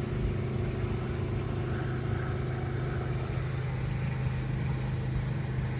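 Steady drone of a truck's engine and road noise, heard from inside the cab while driving along.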